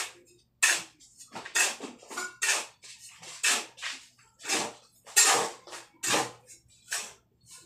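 A dozen or so short scraping strokes of a hand tool on a concrete surface, irregularly spaced at one to two a second.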